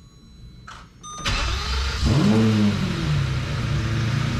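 Lamborghini V12 engine started partway through an oil fill to circulate the fresh oil before the level is checked. About a second in it cranks, then catches with a rev that rises and falls back before settling into a steady idle.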